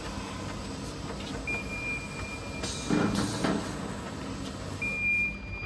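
Conveyor belts of a combined metal detector and checkweigher running with a steady hum. A high, steady alarm beep from the machine sounds briefly about one and a half seconds in and comes on again about five seconds in, which is the alarm of the reject confirmation test. A short clatter about three seconds in.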